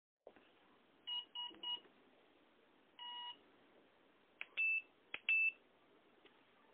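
XXD HW30A brushless ESC sounding its power-up and arming beeps through the CF2822 motor: three short beeps, a longer beep, then two higher beeps, each of the last two just after a sharp click.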